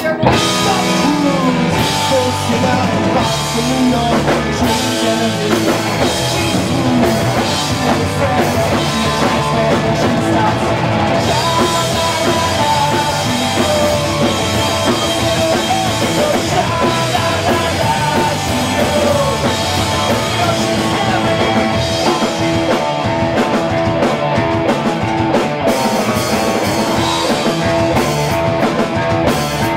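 Punk rock band playing live at full volume: drum kit, electric bass and electric guitars, kicking in all together at the start.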